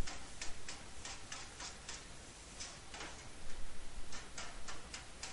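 Hand file rasping in quick short strokes along the freshly cut edge of steel sheet with copper overlay, knocking off the cutting slag. The strokes come about four or five a second, in two runs with a short pause between.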